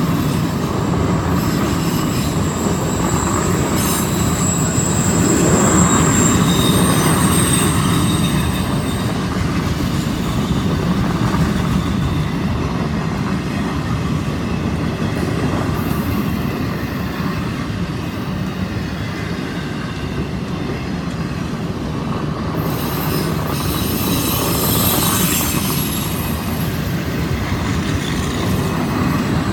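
Loaded autorack freight cars rolling past on a curve: a steady rumble of wheels on rail, with thin high-pitched wheel squeal in the first several seconds and again near the end.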